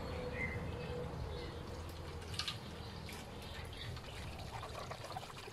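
Water poured from a plastic cup into a car radiator's filler neck, refilling the radiator with clean water to flush out old, dirty coolant.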